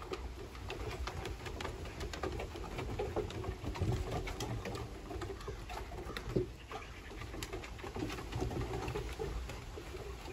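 Puppies' paws and claws pattering and clicking on wooden deck boards, with soft, low puppy grumbles and coo-like whimpers now and then.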